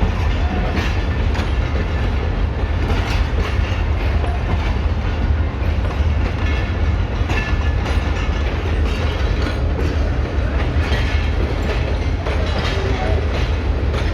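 GMCU-15 diesel locomotive chugging with a deep, steady rumble as it shunts an empty rake of coaches, with intermittent wheel clacks from the rails.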